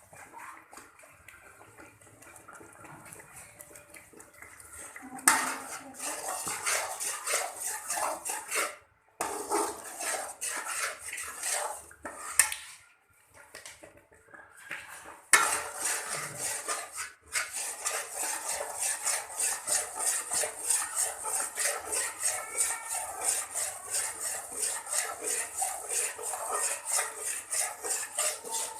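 Metal spoon stirring and scraping ground chana dal in a metal pan, in quick even strokes about three a second. A loud clank about five seconds in starts the stirring, with a couple of short pauses.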